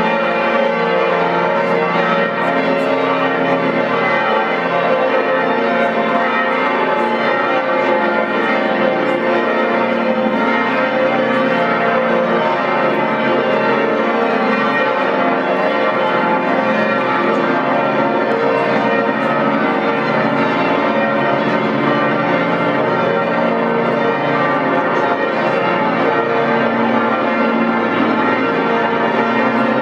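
Several church bells pealing together, their ringing tones overlapping in a steady, continuous peal.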